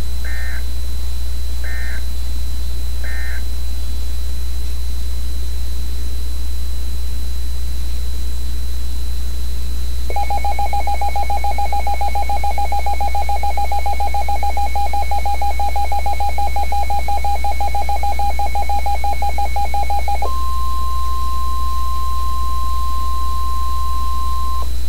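Emergency Alert System tones. Three short data bursts close out the thunderstorm warning, then a pause. About ten seconds in, the two-tone attention signal sounds for roughly ten seconds, and it gives way to a steady single alert tone for the last few seconds ahead of the tornado warning. A low electrical hum runs underneath.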